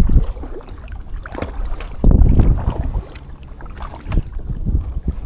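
Water splashing and lapping against a sailing kayak's hull, with wind gusting on the microphone; the loudest gusts come right at the start and about two seconds in.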